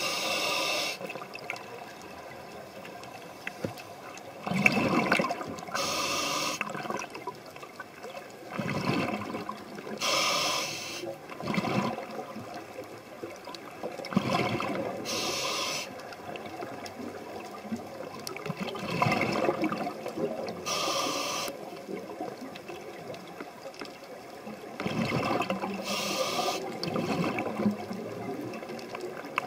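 Scuba diver breathing through a regulator underwater, heard through the camera's waterproof housing: bubbling exhalations and hissing inhalations in a cycle that repeats every four to five seconds.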